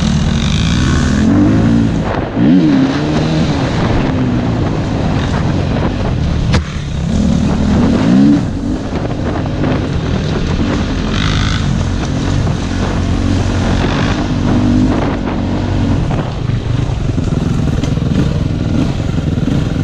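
KTM 250 EXC-F single-cylinder four-stroke enduro engine running under way, its pitch rising and falling as the throttle is worked, with quick revs about two and a half and eight seconds in.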